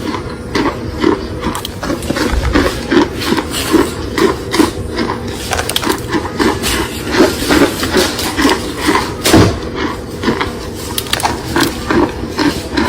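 Close-miked chewing of something crunchy, a steady rhythm of about two crunching bites a second.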